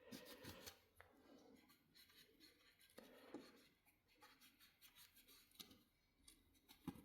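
Near silence with faint scattered clicks and rubbing from small parts being handled, and one short soft knock near the end.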